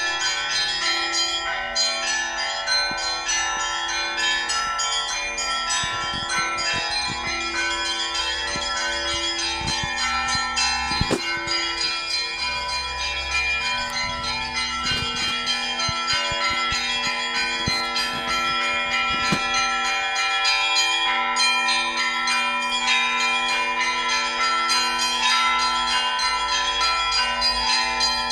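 Russian Orthodox church bells ringing continuously: small high bells struck in quick, overlapping patterns over the sustained hum of lower bells, with a few sharper, louder strikes standing out.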